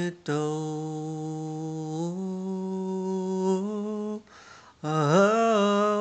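A man's unaccompanied voice humming a wordless melody. It holds one long note that steps up in pitch about two seconds in, breaks briefly for a breath, then goes into a second phrase whose pitch wavers and dips.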